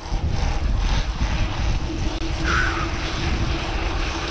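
Wind buffeting the bike-mounted action camera's microphone, with tyre rumble as an enduro mountain bike rolls fast over brick paving, and a faint steady hum underneath.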